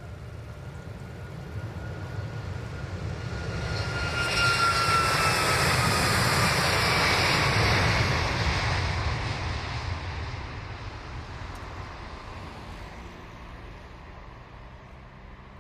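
Boeing 737 MAX's CFM LEAP-1B turbofans at takeoff power as the jet passes by: a rumble that swells, is loudest about four to eight seconds in, then fades away, with a whining tone that falls in pitch as it goes past.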